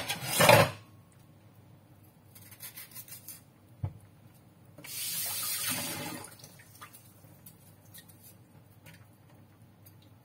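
Kitchen sink tap turned on and run for about a second and a half, a little past the middle. Before it come a loud short clatter at the very start, a few light clicks and a single knock.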